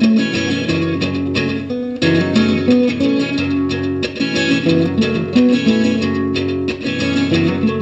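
Guitar music: plucked guitar notes playing a melody, changing pitch several times a second.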